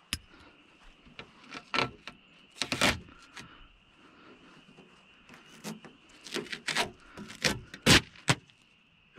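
Tape being pulled off a car door's window glass: a series of short rips and sharp clicks, with a slightly longer tear about three seconds in and a cluster of quick rips near the end.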